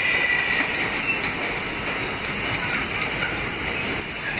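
New York City subway train running on the tracks, with a steady high-pitched wheel squeal and rail noise; a clearer whine in the first second or so fades out.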